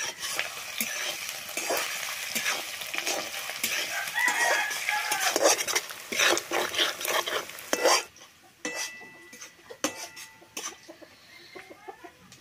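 Sliced onions sizzling in hot oil in a large metal kadai as a steel spatula stirs and scrapes them against the pan, with frequent clinks. The sizzling cuts off abruptly about eight seconds in, leaving only occasional light clinks.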